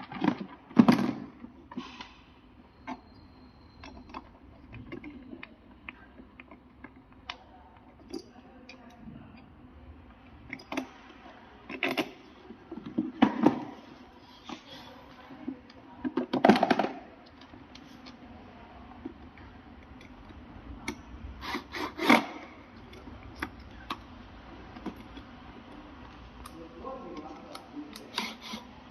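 Small hard objects being handled and set down: scattered clicks and taps, with a few louder clatters spread through.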